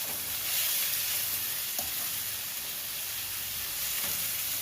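Shrimp sizzling steadily as they sauté in a hot pan, with a few faint scrapes of stirring.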